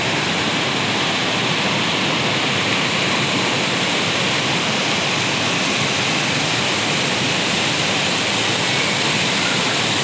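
A waterfall and its stream cascading over rocks, a steady, unbroken rush of falling water.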